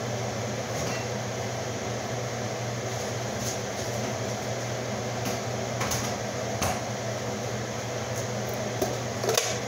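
Steady mechanical hum of an appliance or fan running, with a couple of faint clicks about six seconds in.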